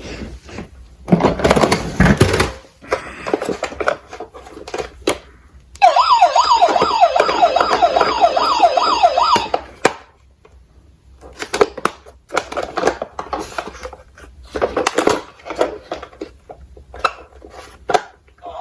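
Electronic yelp siren warbling fast for about four seconds in the middle, among scattered clicks and clacks of small diecast toy cars. A short noisy rush comes about a second in.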